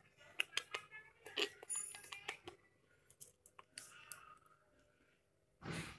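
Snail shell held in the fingers while a small turtle bites at it: faint, irregular clicks and crunches through the first couple of seconds, and a short burst of noise near the end.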